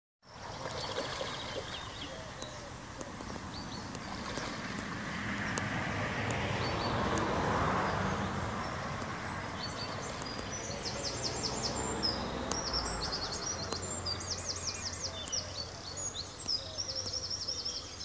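Carp splashing at the surface of a canal: a long bout of water noise that swells to its loudest about eight seconds in and then eases off. Small birds sing rapid trills over it, mostly in the second half.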